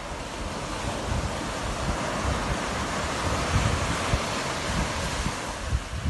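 Sea surf breaking and washing up a sandy beach as a steady rushing wash that grows louder over the first couple of seconds, with wind gusting on the microphone.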